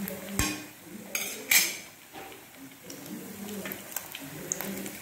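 Metal ladle clinking and scraping against a frying pan as battered bondas are turned in hot oil, over the sizzle of the oil. There are a few sharp knocks, the loudest about a second and a half in.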